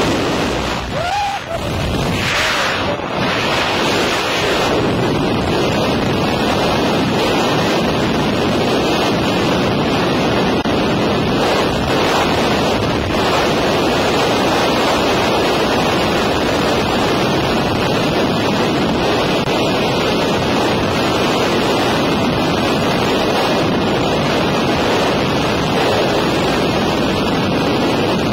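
Loud, steady rush of freefall wind blasting across the camera microphone during a tandem skydive.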